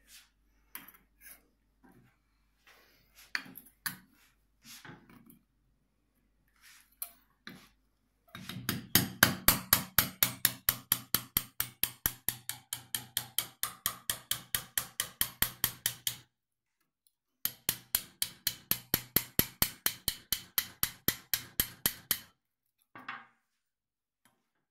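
Ostrich egg shell tapped with a kitchen knife to crack it open: a few scattered light knocks, then two long runs of rapid, even taps, about four to five a second, with a short pause between them.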